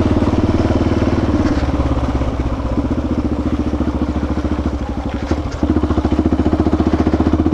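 Motorcycle engine running while riding, an even chugging of firing pulses. It eases off through the middle and picks up louder again a little past halfway, as the throttle is opened.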